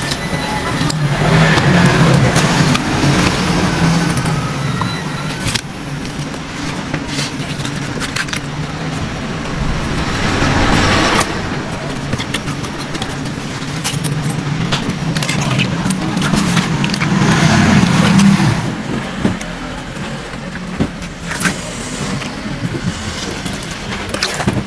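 Roadside street noise: a low engine hum that swells twice, as of vehicles passing close by, with scattered clicks and knocks over it.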